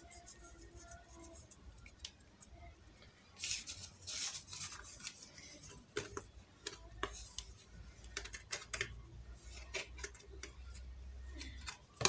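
A plastic dough scraper scraping around the rim of a fluted metal tartlet tin, trimming off excess shortcrust dough. The short scraping strokes and light clicks start about three seconds in.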